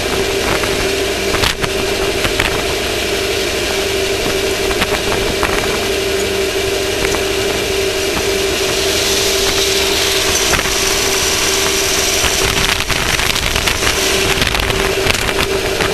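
Off-road race vehicle engine running at a steady, unchanging pitch, with rough rattling, crackling noise over it.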